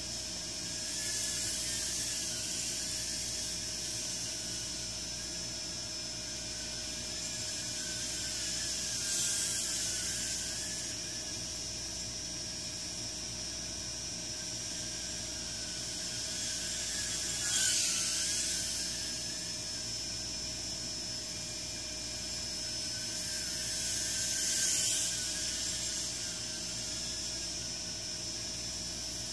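Blade Inductrix micro quadcopter's small brushed motors whining in flight over a steady hiss, the whine's pitch wavering as the throttle changes. It swells four times as the quad passes close, the loudest a little past halfway.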